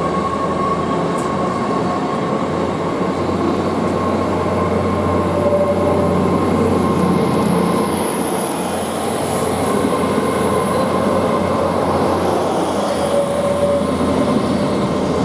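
Great Western Railway Class 800 bi-mode train departing, running with a steady rumble and a thin high whine over it.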